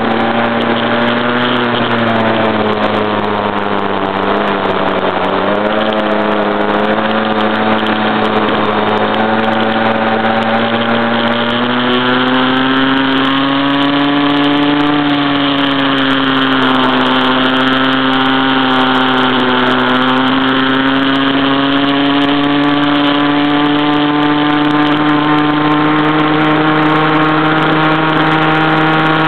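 Stock CAG pocket bike's small two-stroke engine running hard under way, heard from right at the steering head. Its pitch dips twice as the bike eases through turns and climbs steadily again near the end.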